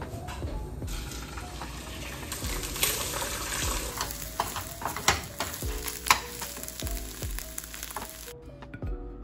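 Eggs sizzling as they are scrambled in a nonstick frying pan, with a spatula scraping and knocking against the pan, the sharpest knock about six seconds in.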